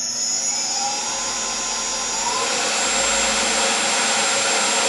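Tormach PCNC 1100 mill's spindle motor running unloaded with the drive belt off, so only the motor turns. A faint rising whine as it comes up to speed in the first couple of seconds, then a steady high-pitched run at about 4,000 RPM.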